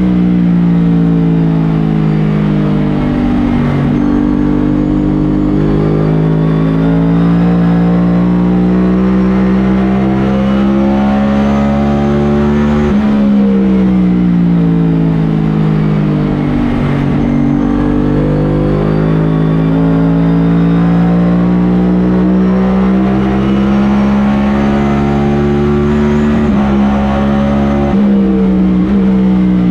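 A NASCAR Cup Series race car's V8, recorded from inside the car at racing speed. The engine note drops sharply about 13 seconds in and again near the end, as the throttle comes off for a corner, then climbs steadily as the car accelerates back onto the straight.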